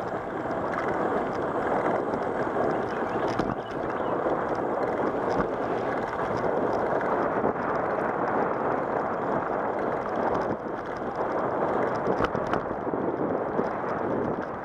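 Bicycle rolling along an asphalt path: a steady, muffled rush of tyre and wind noise, with a few light knocks and rattles from bumps in the pavement.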